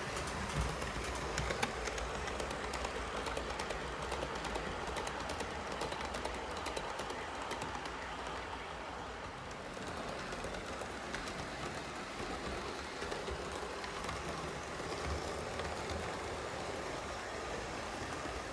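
Model railway locomotive running on track and hauling a train of metal hopper wagons: a steady running whirr with many small clicks of the wheels over the rail joints, the clicks thickest in the first half.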